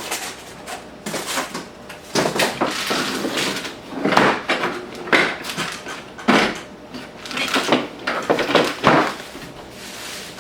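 Handling noises: a run of irregular knocks, scrapes and rustles, about ten in all, as the saw, its case and packing are moved about and set down.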